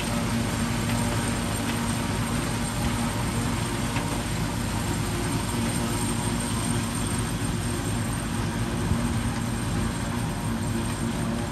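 New Holland FP230 pull-type forage harvester chopping standing corn for green chop, heard together with the tractor pulling it. The two make one steady mechanical hum with a constant low tone throughout.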